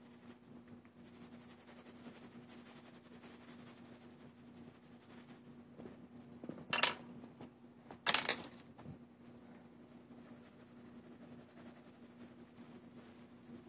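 Faint scratching of a colored pencil shading on paper, then two sharp clacks about a second apart a little past the middle, which are the loudest sounds. A low steady hum runs underneath.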